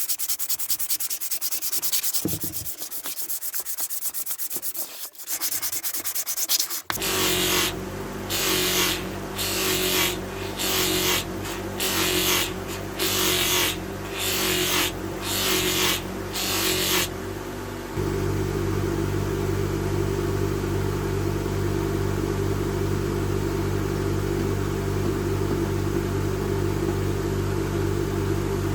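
Metal being hand-sanded with quick back-and-forth strokes. After about seven seconds a motor starts humming, and the piece is pressed to it in about ten short bursts of grinding hiss, roughly once a second. For the last third only the steady motor hum is left.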